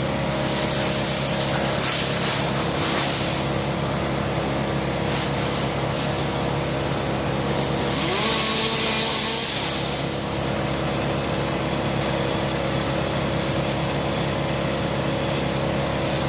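An engine running steadily, with bursts of hiss about half a second in and again about eight seconds in.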